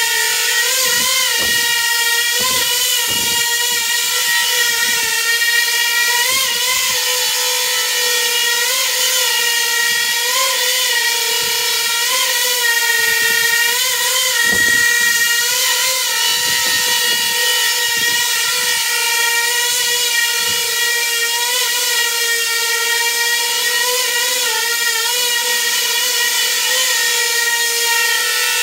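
Coaxial multicopter's contra-rotating propellers and motors whining steadily at a high pitch while it hovers through an ArduPilot AutoTune session. The pitch wobbles briefly every second or two as the craft is twitched and corrected.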